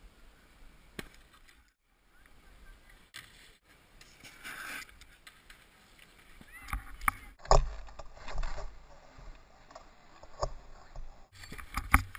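Helmet-camera sound of riding down a packed-snow slope: a rough scraping hiss of the board sliding on snow, with wind rumble on the microphone. There are several sharp knocks, the loudest about seven and a half seconds in.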